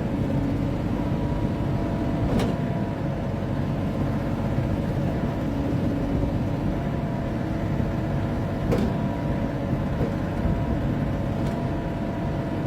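Truxor T50 amphibious machine's engine running steadily as its hydraulics lift the front attachment, with a faint steady whine over the engine. Two sharp clicks come about two seconds in and near nine seconds.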